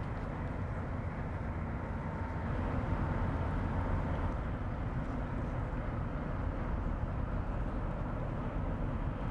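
Steady low rumble of a passing inland motor cargo ship's diesel engine.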